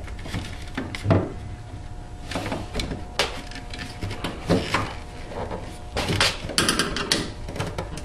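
Refrigerator condenser fan motor and its support frame being fitted back into the compressor compartment: irregular knocks, clicks and scraping of parts being pushed and seated into place.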